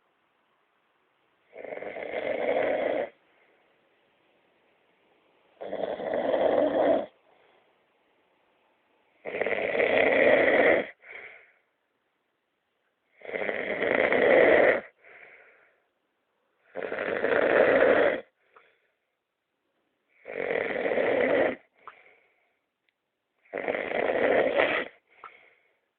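A man snoring: seven long snores, one about every three and a half to four seconds, each followed by a short, fainter sound.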